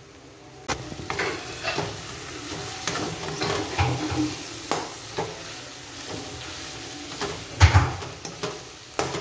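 Slotted metal spatula stirring chopped amaranth leaves frying in a metal kadai: irregular scrapes and knocks against the pan over a faint sizzle, with the loudest knocks near the end.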